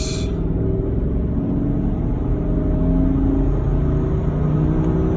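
Chevrolet Avalanche pickup on the move: steady engine and road noise from inside the cab, the engine note rising a little around the middle.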